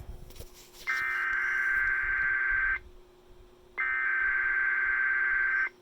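Emergency Alert System SAME header: two bursts of digital data tones, each about two seconds long with a second's gap between them, encoding a tornado watch (TOA) alert.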